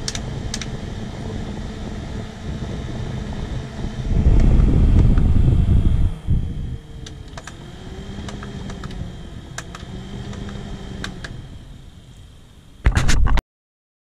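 Small USB portable air cooler's fan running with a steady hum, with scattered light clicks. About four seconds in, a much louder rushing noise lasts for roughly two seconds. Afterwards the hum's pitch rises and falls in slow swells, then a brief loud burst near the end cuts off abruptly into silence.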